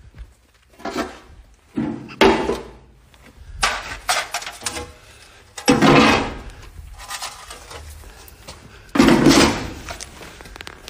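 Stiff plastic boards clattering and scraping as they are handled and stood against a metal door. There are about five loud knocks spread over ten seconds, with softer scraping between them.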